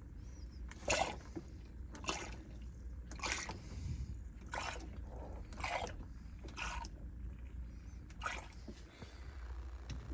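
Water dripping from a leaking air-conditioner drain tray: separate drops landing about once a second, some louder than others, over a steady low hum.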